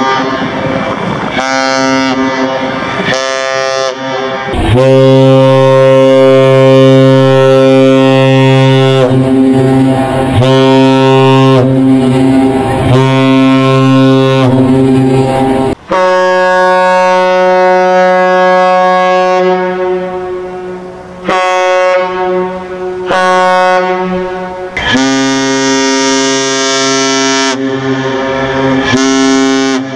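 Synthesized cargo-ship horns sounding a series of long and short blasts, each a steady, many-toned chord. About halfway through, the deep, low horn gives way to a higher-pitched one without the low note.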